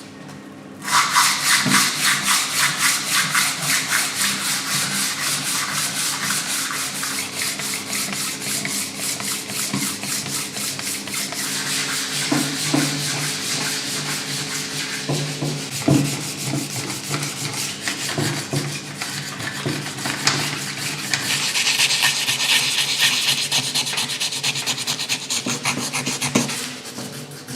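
Fast, even abrasive rubbing strokes on an engine part, starting about a second in and turning hissier for a few seconds near the end, over a faint low steady hum.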